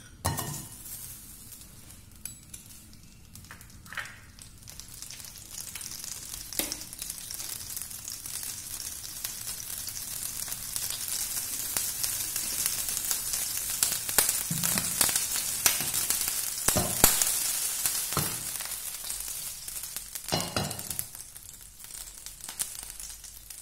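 Butter melting and sizzling in hot olive oil in a stainless steel frying pan, a crackling hiss that builds over the first several seconds, with scattered pops as the butter foams.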